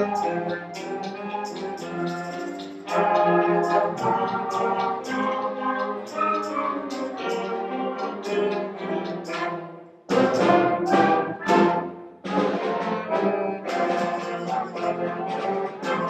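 Middle school concert band of woodwinds and brass playing together: sustained chords with many short accented notes. The band breaks off briefly about ten seconds in and comes back in loudly.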